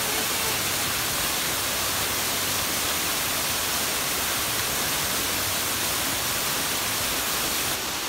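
Steady, unbroken rush of a waterfall pouring into a rock plunge pool, heard close up; the sound shifts slightly and drops a little just before the end.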